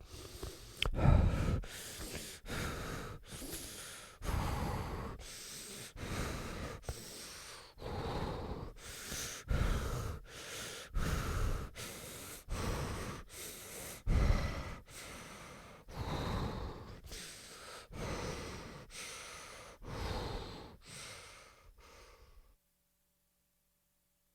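A person breathing heavily into the microphone as an answering-machine sound effect: deep, noisy breaths in and out, a little more than one a second, stopping shortly before the end.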